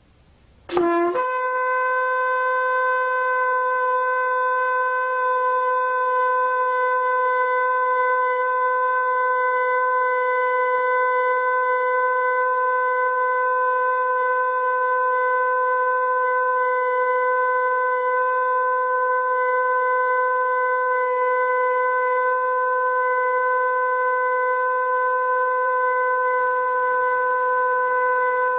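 A shofar sounding one long, unbroken blast at a steady pitch, rich in overtones. It opens about a second in with a short low attack that jumps up to the held note, and some wavering lower tones join near the end.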